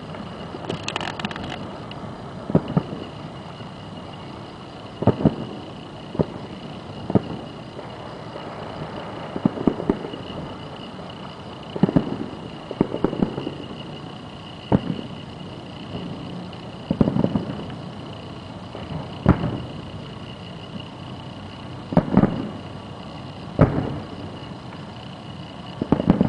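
Distant fireworks shells bursting, heard from about three miles away: about fifteen sharp booms spaced one to three seconds apart, several trailing off in a short rumble.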